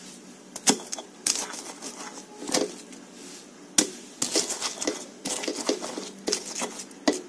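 Stone pestle (ulekan) pounding and grinding a spice paste of shallots, garlic, chilies and turmeric in a stone mortar (cobek): irregular knocks of stone on stone about a second apart, with scraping and crushing between them.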